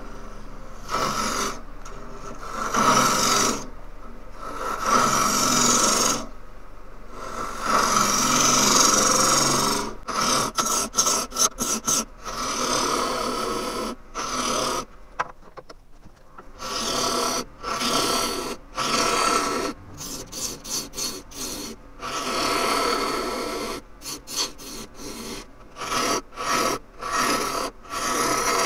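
Turning gouge cutting green Japanese ornamental cherry end grain on a wood lathe, sped up sixfold: a run of cutting passes, longer ones in the first third, then many short bursts with brief gaps between them.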